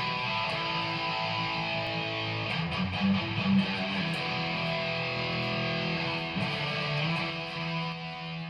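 Music with guitar, ending abruptly near the end.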